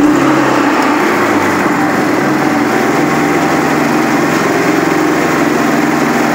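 Generac portable inverter generator running. Its engine note shifts in pitch over the first few seconds, then holds steady.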